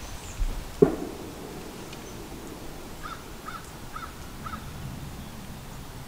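A single sharp knock about a second in, then a crow cawing four times, about two caws a second.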